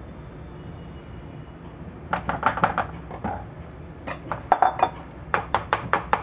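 Round aluminium tin of dhokla batter knocked against a marble counter to level the batter: clusters of quick metallic clattering knocks, several a second, starting about two seconds in.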